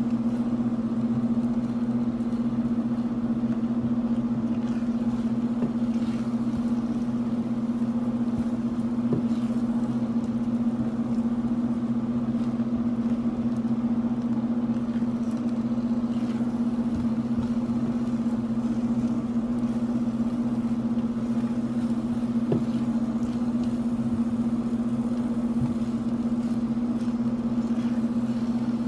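A steady low electrical hum from a kitchen appliance, unchanging throughout. A few faint soft scrapes and taps of a silicone spatula against the non-stick skillet sit on top of it.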